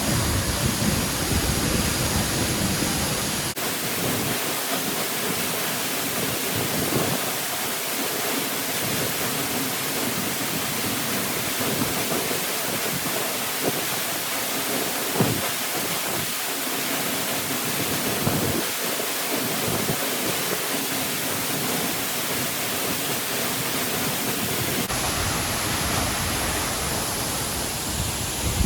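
Waterfall rushing: a steady, dense roar of falling water, with a sudden change in its tone twice, as at cuts between shots.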